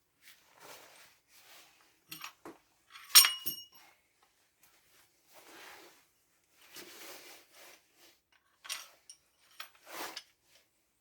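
Metal parts being handled: scattered scrapes and rustles, with one sharp metallic clank that rings briefly about three seconds in and a few lighter clinks.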